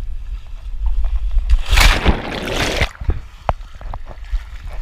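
Motorboat ride: a steady low rumble of engine and wind on the microphone, with a loud rush of noise from about one and a half to three seconds in, followed by a few sharp knocks.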